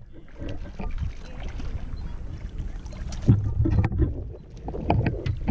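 Wind rumbling on the microphone, with light water splashes and knocks as a landing net is dipped into the lake shallows to scoop up a hooked trout. The loudest splash comes about three seconds in.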